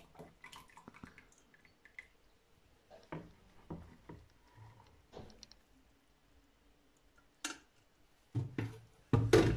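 Wooden spoon scraping thick, hot cooked teff porridge out of a stainless steel saucepan into a plastic bucket of teff batter, with soft wet plops and scattered small scrapes and clicks. A burst of louder knocks and scrapes comes near the end.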